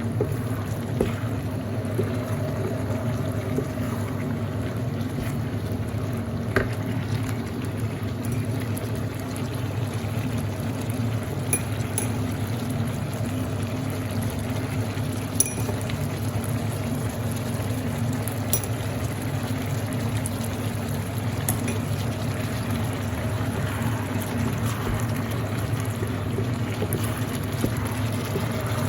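Liquid simmering and bubbling in a cooking pan, a steady hiss over a low hum, with a few faint clicks.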